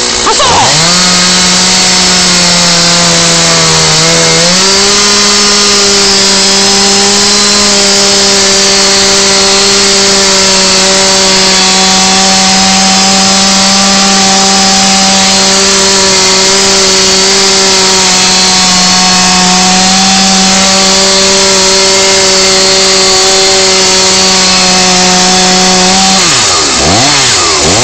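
Two-stroke petrol chainsaw revving up and cutting through a timber railway sleeper at full throttle, its pitch holding steady under load for over twenty seconds. Near the end the engine note drops and rises again as the cut goes through and the sleeper falls apart.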